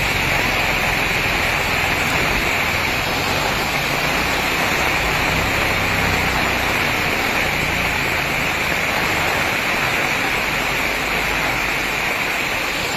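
Heavy rain pouring down: a steady, dense hiss. A low rumble underneath fades out near the end.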